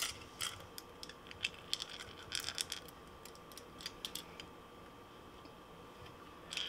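Faint, irregular small metal clicks and clinks in short clusters: treble hooks and split rings jangling against each other and the hard lure body as the 3D-printed popper is turned in the hands.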